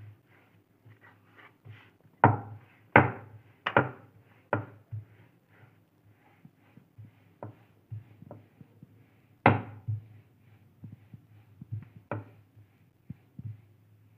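Wooden rolling pin rolling out paratha dough on a round wooden board, making a run of small knocks and taps with several louder wooden clacks. A faint low hum runs underneath.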